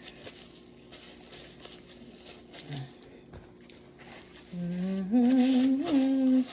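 Faint rustling of a paper towel as hands are wiped. Then, about four and a half seconds in, a woman hums loudly with her mouth closed, holding a low note and stepping up to a higher held note with a small wobble.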